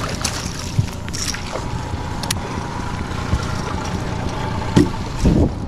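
Honda 30 hp four-stroke tiller outboard running steadily at low trolling speed, with wind on the microphone. There are a few short knocks in the boat, and the loudest thumps come near the end.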